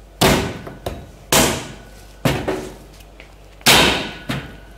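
Heavy butcher's cleaver chopping through a half lamb carcass and its bones on a wooden chopping block: four hard blows about a second apart, each fading quickly, with lighter knocks between them.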